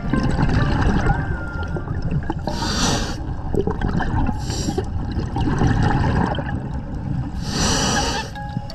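Underwater scuba sound: a diver's regulator hissing in three short breaths, over the steady low gurgle and rumble of bubbles and water moving past the camera.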